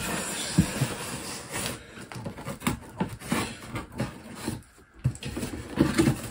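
Scissors slitting the packing tape along the seam of a cardboard box: a scratchy rasping as the blade runs through the tape, with several short knocks of the scissors and hands against the box.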